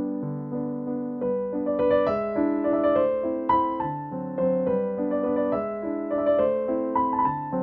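Background keyboard music with a piano-like sound: a melody of short notes over held chords.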